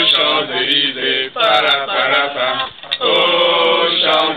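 Boys singing together unaccompanied in a chant-like style, in about three long held phrases with short breaths between them.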